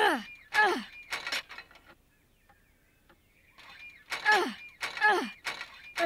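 Cartoon hand water pump handle squeaking as it is worked up and down, each squeak falling in pitch, with some metal clanking. There are two squeaks at the start, a pause of about two seconds, then a run of squeaks a little under a second apart. No water comes yet.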